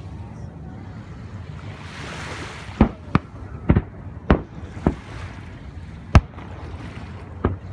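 Aerial firework shells bursting: after a few seconds of steady background hiss, about seven sharp bangs come at irregular intervals, the loudest about six seconds in.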